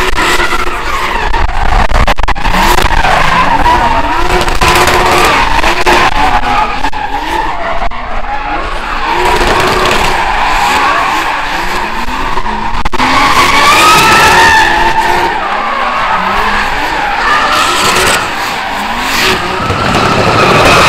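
Drift car sliding, its tyres squealing in long wavering tones over an engine revving up and down at high revs.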